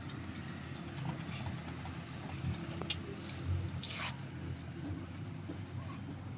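A few light clicks and taps, the sound of small metal parts being handled, over a steady low hum.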